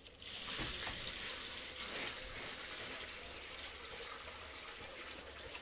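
Salted drinking water poured from a plastic bucket into a cow's tub: a steady splashing pour that starts just after the beginning and slowly tapers off.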